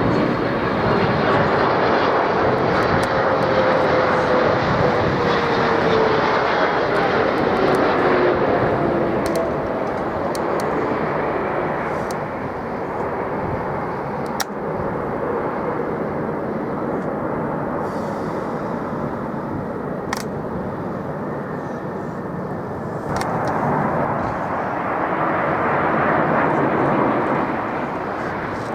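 Jet airliner passing close on its landing approach: a loud engine roar with a whine falling in pitch as it goes by. The roar eases off midway, then swells again near the end.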